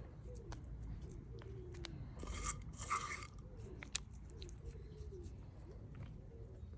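Sprouting grain being scooped by hand and dropped into a pot: crunchy rustles with scattered light clicks. The two loudest bursts come about two and a half to three seconds in.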